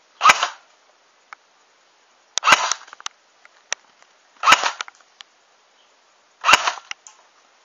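Classic Army G3SG1 airsoft electric gun firing four single shots about two seconds apart through a chronograph, each a short sharp shot. These are velocity test shots, and the chronograph reads under 300 fps.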